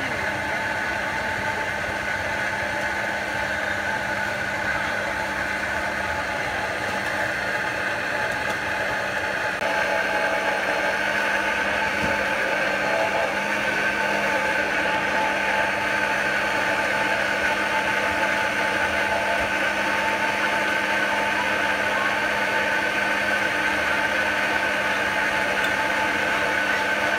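Commercial countertop blenders running steadily, blending a green drink in their jugs; the motor hum gets a little louder about ten seconds in.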